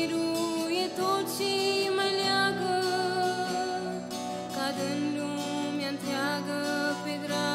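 A woman singing a Romanian hymn in Romanian to her own acoustic guitar accompaniment, with vibrato on the held notes.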